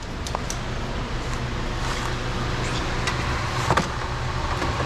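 A few light clicks and taps of small pliers working on the car's wiring, the clearest near the end, over a steady low mechanical hum.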